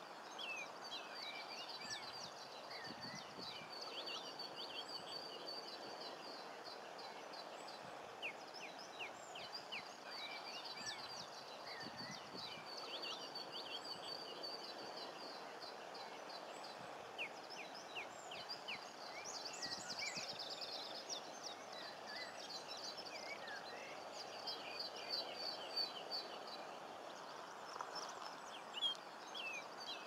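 Common linnets singing: a continuous twittering of short high chirps and rapid trills, over a steady background hiss.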